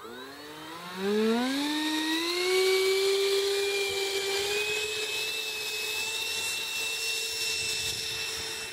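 Model jet's 90 mm electric ducted fan spooling up to full throttle with a rising whine, then holding a steady high whine as the jet rolls along wet grass on a takeoff run, unable to get up to flying speed.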